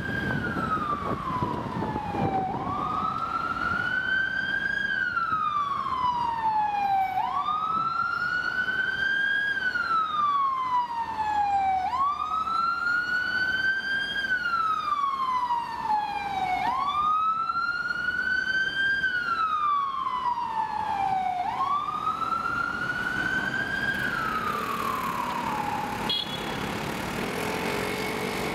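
Metropolitan Police Mercedes-Benz van's siren on a slow wail, sweeping up and down about every four and a half seconds over city traffic. It cuts out a couple of seconds before the end, leaving road traffic.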